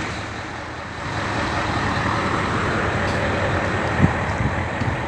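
Engine of a parked mobile crane running with a steady rumble.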